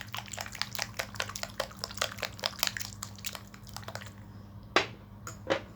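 A utensil mashing and stirring a wet mixture of mashed avocado and banana in a bowl: quick wet clicks and squelches, several a second, thinning to a few separate clicks near the end.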